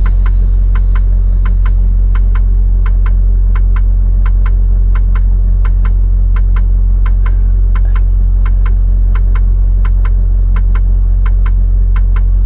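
Semi truck's diesel engine idling, a steady low drone heard from inside the cab, with the flasher relay ticking in even pairs about one and a half times a second.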